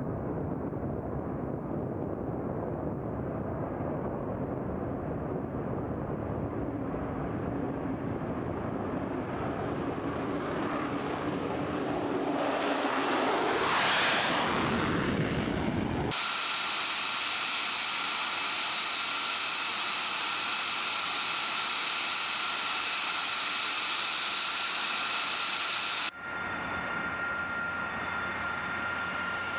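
F-35 fighter jet's F135 turbofan on takeoff: the jet noise swells and rises over the first half as the jet accelerates and passes close, loudest about halfway through, then cuts off suddenly. After the cut comes a steady jet engine whine with several constant high tones, which drops in level at another cut near the end.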